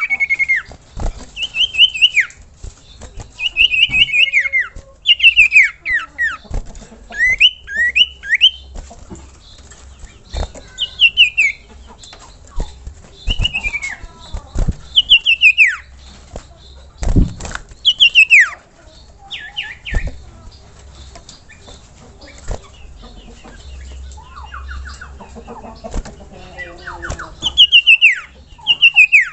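Common iora (cipoh) calling: short phrases of quick notes that step down in pitch, repeated every one to two seconds with pauses between, used as a lure call to set other cipoh singing.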